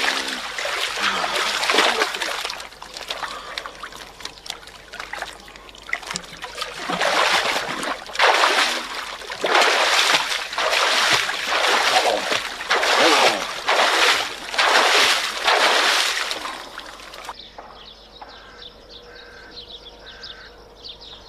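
Water poured from a jug splashing over a man in a shallow pool, in repeated loud surges every couple of seconds. About seventeen seconds in the splashing stops abruptly and only a much quieter background remains.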